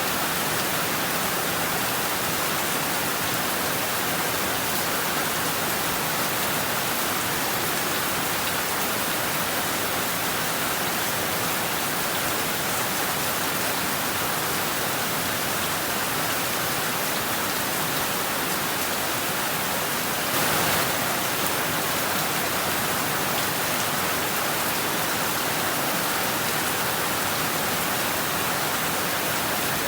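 Heavy rain falling steadily, a dense unbroken hiss of drops with a brief louder burst about twenty seconds in.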